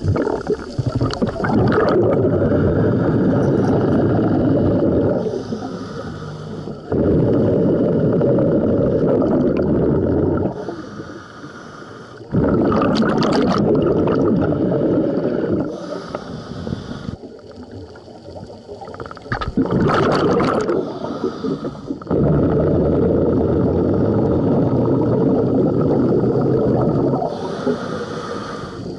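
Scuba diver breathing through a regulator, heard underwater: long exhalations as rumbling bubble noise lasting several seconds, each followed by a shorter, hissing inhalation through the demand valve, repeating about every five or six seconds.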